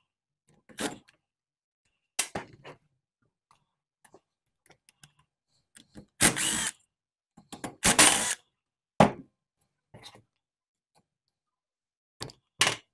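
Cordless drill-driver run in two short bursts, about a second and a half apart, backing out the screws that hold a chainsaw's ignition coil, with scattered clicks and knocks of parts being handled.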